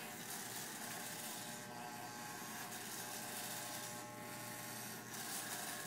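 Corded electric hair clippers buzzing steadily as they cut through a man's hair.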